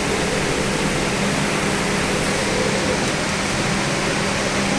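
Steady hiss with a constant low hum from the welding gantry system's running machinery, no distinct knocks or changes.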